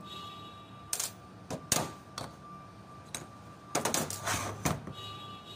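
Sharp metallic clicks and clinks of tools and car A/C compressor parts handled on a workbench: a few separate taps in the first half, then a quick cluster of clatter in the second half.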